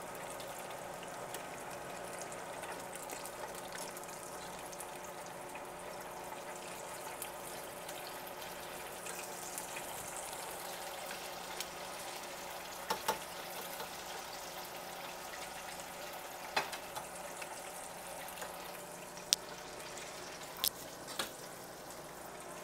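Spring rolls deep-frying in hot oil in an electric deep fryer, a steady sizzle and bubbling. A few sharp clicks in the second half come from metal tongs against the wire fry basket.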